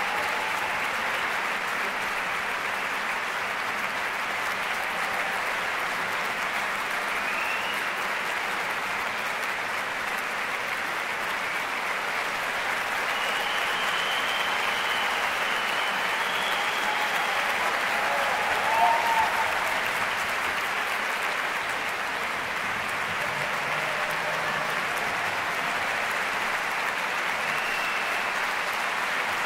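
Concert-hall audience applauding steadily after an orchestral performance, with a few faint voices calling out over the clapping.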